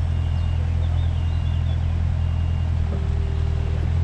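Yanmar diesel engine of a 2004 Takeuchi TB145 mini excavator running steadily, a constant low hum at idle.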